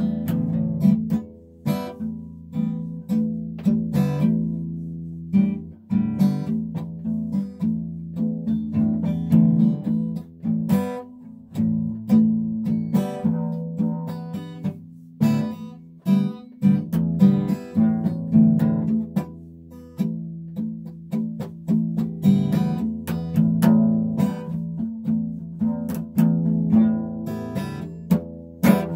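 Acoustic guitar music: a continuous run of plucked notes and strums, each ringing and fading.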